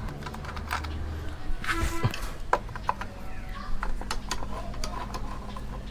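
Irregular metallic clicks, taps and clinks of hand tools and bolts on a motorcycle's sprocket cover as it is being removed, with a brief ringing clink about two seconds in.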